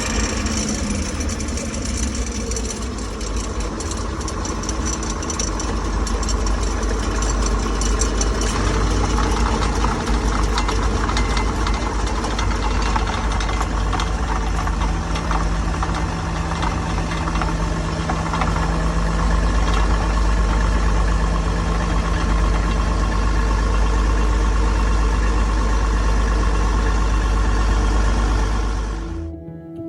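John Deere 6600 combine running steadily, engine and machinery turning together, with a steady hum joining in about halfway through; it cuts off shortly before the end.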